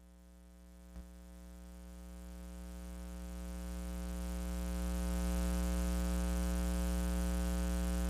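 A steady electrical hum, a buzz of fixed pitch with many overtones. It fades up after a faint click about a second in, then holds level.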